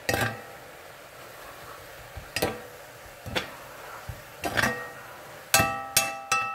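Metal spoon knocking against the side of a cooking pot while stirring, each knock ringing briefly. The knocks come a few seconds apart at first, then faster and with longer ringing near the end.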